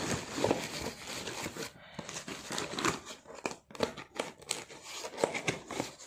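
Plastic packing wrap crinkling and cardboard box flaps rustling as a packed box is handled and pulled open, in irregular crackles with some short ripping sounds.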